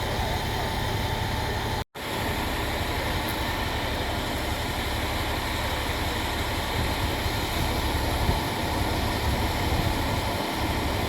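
Strong wind rushing and buffeting the microphone in a steady roar, with a sudden drop to silence for an instant just under two seconds in.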